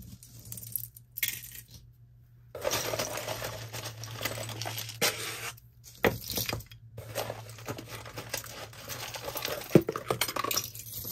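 Metal costume jewelry, gold-tone chains and beaded necklaces, clinking and jingling as it is picked up and handled, starting a couple of seconds in, with one sharp clink near the end.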